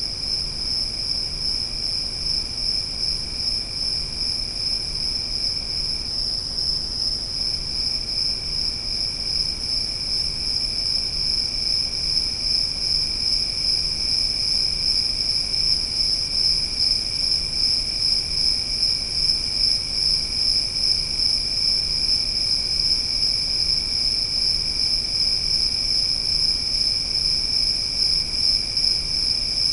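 Forest insects trilling in a steady, unbroken chorus at two pitches: a loud high trill, and a fainter lower one that drops out for a moment about six seconds in.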